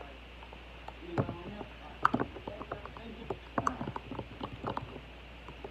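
Glue-and-paint mixture being stirred and worked in a container: an irregular run of short clicks and taps.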